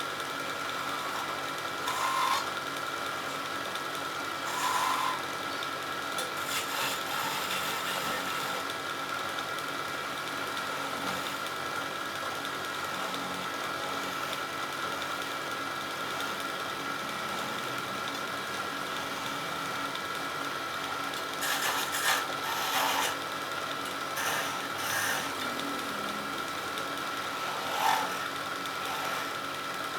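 Wood lathe running with a steady whine, with a few short scraping bursts as a turning tool cuts into the spinning wood.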